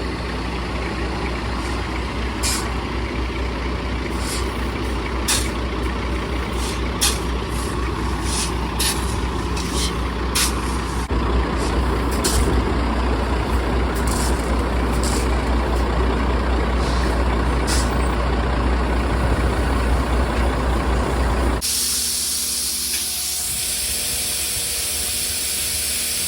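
Heavy diesel farm machinery running with a steady low rumble and scattered sharp clicks and knocks, growing louder about halfway through. About twenty seconds in it cuts suddenly to a loud, steady rushing hiss.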